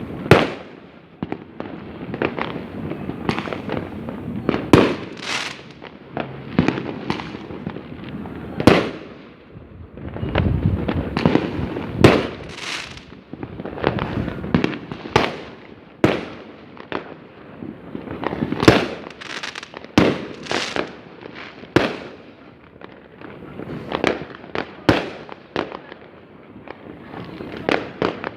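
Fireworks exploding, many sharp bangs at irregular intervals, often one to two a second, over a continuous crackle of bursting shells and firecrackers.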